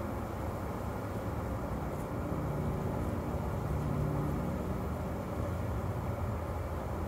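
Honey bees humming over an open hive box: a low steady drone that swells about two seconds in and fades again a few seconds later.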